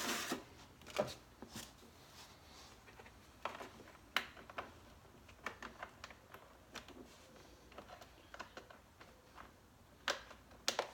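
Scattered light clicks and rustling of plastic door-trim parts and connectors being handled and fitted, with a few sharper clicks about a second in, around four seconds in, and near the end.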